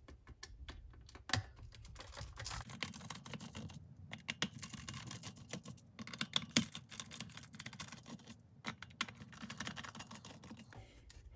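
A small screwdriver backing screws out of a plastic lantern's battery compartment: many quick, irregular light clicks and ticks.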